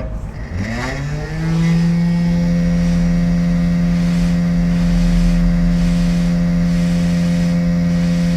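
A small electric motor spins up with a rising hum about a second in, then runs at a steady pitch.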